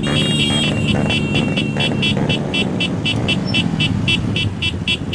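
Many small motorcycles running together in a motorcade, with a horn beeping rapidly and evenly, about four beeps a second, after one longer blast at the start.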